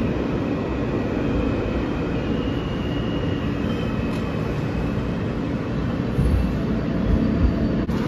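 New York City subway train running, heard from inside the car: a steady, loud rumble with a faint high whine over it.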